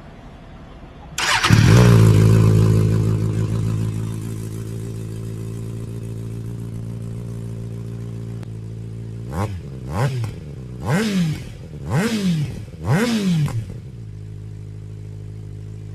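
Kawasaki ZX-6R's 636cc inline-four engine starting about a second in, coming up loud and settling to a steady idle. Near the end it is revved in five quick throttle blips, each rising and falling, then drops back to idle.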